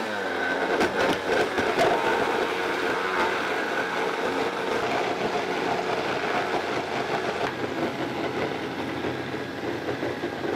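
Countertop blender motor running at speed, churning frozen bananas, spinach and coconut milk into a thick green purée. It starts abruptly and cuts off near the end.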